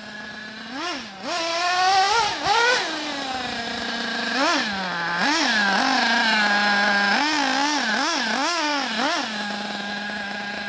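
Radiosistemi Crono RS03 nitro buggy's Alpha F850 five-port glow engine running, blipped up in quick bursts of throttle again and again, each rising sharply in pitch and dropping back to a steady idle in between.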